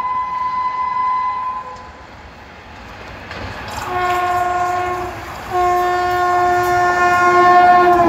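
Horn of the Poorva Express's locomotive as the train approaches at full speed: a steadier horn note fades out about two seconds in, then two loud blasts about four seconds in, a short one and a longer one, whose pitch drops at the very end as the locomotive rushes past.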